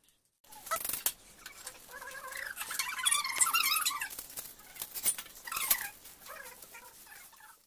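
Small plastic-foil noodle seasoning sachets being torn open and crinkled by hand, with many sharp crackles. A louder squeaky, wavering sound stands out from about two to four seconds in.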